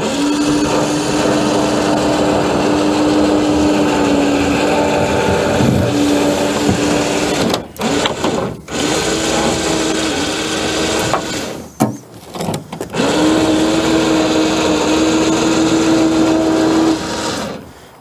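Small electric motor driving the boat loader's cable winch, paying out the cable as the boat is lowered. It runs at a steady pitch, stops briefly a couple of times partway, and stops near the end.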